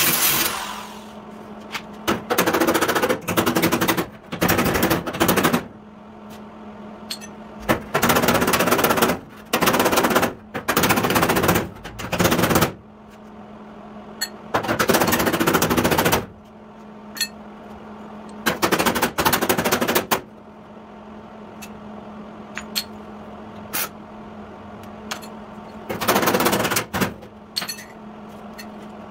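MIG welder laying short stitch welds along a crack in the sheet-steel rear fender of a 1953 Chevy truck, crackling in bursts of one to two seconds, about nine of them with pauses between. A steady hum runs underneath.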